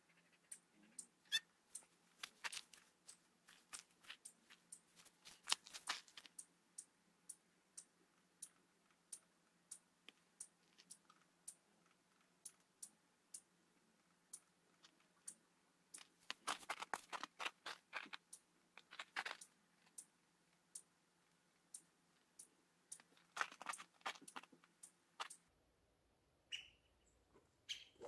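Near silence, broken by faint, evenly spaced clicks a little more than once a second and a few short bursts of rustling crackle. No hum from the bees can be heard.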